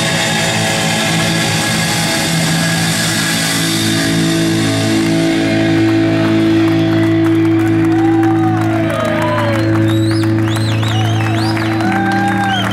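Live rock band with electric guitar, bass and drums ending a song on a long held, ringing chord; the cymbal wash thins out about halfway through. In the second half, audience whistles and cheers come in over the sustained chord.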